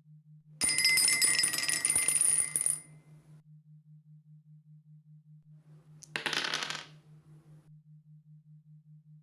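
Dice rolling and clattering on a hard surface: a rapid rattle of clicks with a little ringing lasting about two seconds, then a shorter clatter about six seconds in. A faint low pulsing hum runs underneath.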